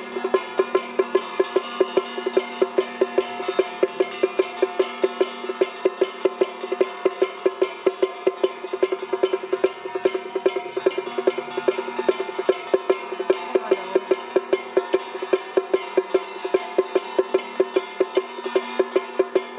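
Traditional Taiwanese temple-procession music accompanying a White Crane troupe: a sustained pitched melody over an even beat of sharp clanking strikes, about four a second.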